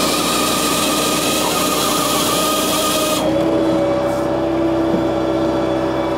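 A Japa 395 firewood processor runs off a tractor's PTO power pack, giving a steady, loud machine hum from the engine and hydraulics. About three seconds in, the upper hiss drops away and the note steps slightly higher, then holds steady.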